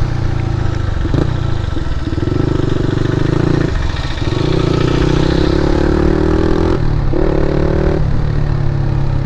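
KTM Duke 250's single-cylinder engine, breathing through an aftermarket Akrapovic exhaust, running under throttle while riding. The engine note dips briefly about four times between steady pulls.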